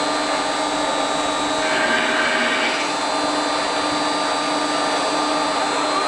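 Automated drilling unit of a CNC drilling line for steel profiles running with a steady machine whine of several constant tones over a hiss. A short rush of extra hiss comes about two seconds in.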